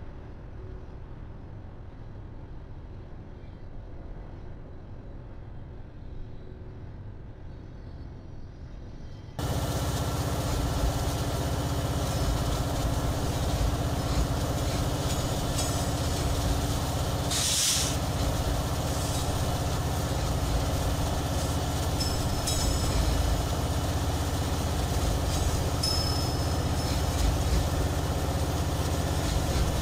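A faint low rumble, then about nine seconds in a sudden change to a BNSF diesel freight locomotive close by, its engine running loudly and steadily as it moves past. A brief hiss comes near the middle of the loud part.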